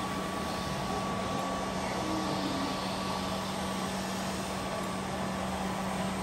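Autonomous floor-scrubbing robot running as it turns on a tiled floor: a steady drone of its motors with a constant hum.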